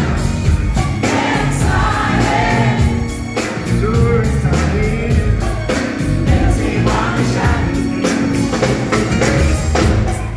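Live soul-pop band playing with a male lead singer and female backing singers, over keyboard and a steady drum beat, heard through a phone's microphone from the audience.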